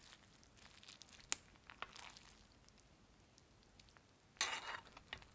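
Metal spoon stirring and scooping food in a cast-iron pot, with soft scraping and rustling of the food. A sharp clink of spoon on pot comes about a second in, and a louder burst of scraping comes near the end.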